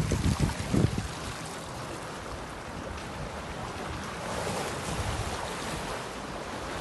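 Wind buffeting the microphone over water rushing past a sailboat's hull, with heavy gusts in the first second and a swell of rushing water about four seconds in.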